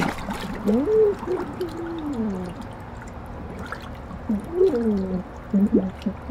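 A man's voice heard muffled with his face under hot tub water: three gliding vocal sounds, each rising and then falling, over trickling water.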